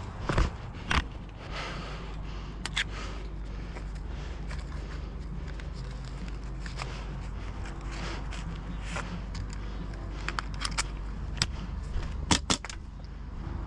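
Rustling movement and a steady low wind rumble on the microphone, with scattered sharp clicks: two loud ones about half a second and a second in, a few around the tenth to eleventh second, and a quick cluster near the end.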